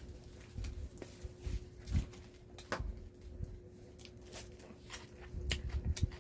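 Chewing and biting into wood-fire roast chicken, with scattered small clicks and light knocks from handling the food, over a faint steady hum.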